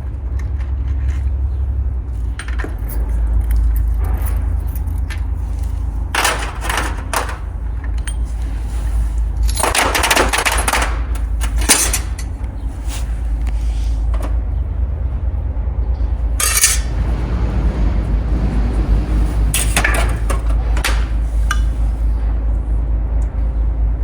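Metal transmission parts and hand tools clinking and rattling, with several short hissing bursts, over a steady low rumble.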